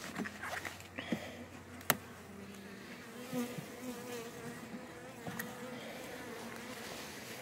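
Honeybees buzzing around an open hive: a steady hum with slowly wavering pitch, broken by a few light clicks, the sharpest about two seconds in.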